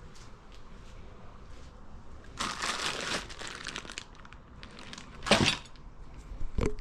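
Packaging crinkling and rustling as boxed parts are handled, with a louder crunch about five seconds in.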